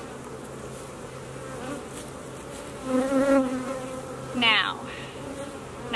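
Honeybees buzzing steadily around a frame of bees being worked by hand, with two brief louder buzzes about three and four and a half seconds in.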